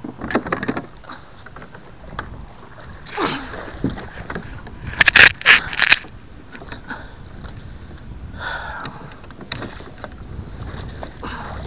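Knocks, rattles and scrapes of a landing net and fishing gear being handled against a kayak, close to the microphone, loudest in a quick cluster of sharp knocks about five to six seconds in.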